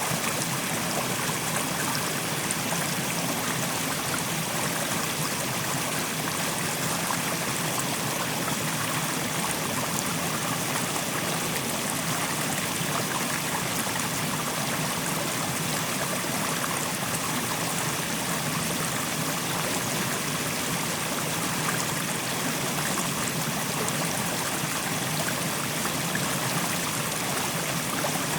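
Fast-flowing mountain stream rushing over rocks, a steady, even rush of water.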